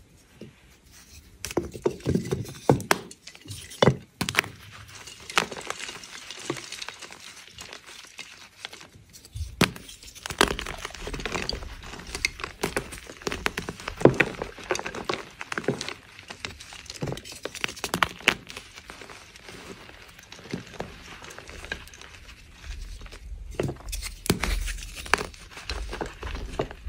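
Blocks of gym chalk crushed and crumbled in the hands: a run of irregular sharp, crisp crunches and crackles as the blocks snap into chunks and fall to powder.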